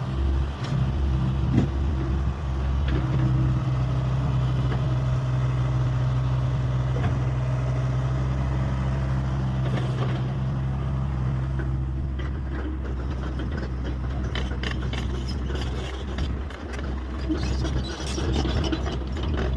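Hyundai 85A excavator's diesel engine running steadily. About two-thirds of the way through, the engine note drops back and a run of knocks and clatter follows.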